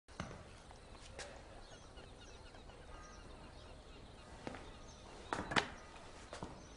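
A few scattered sharp knocks and taps over a faint steady hiss, the loudest a close pair about five and a half seconds in.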